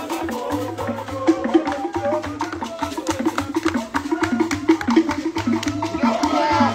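Igbo ogene troupe playing: metal gongs struck in a fast, even rhythm over drums, with voices singing near the end.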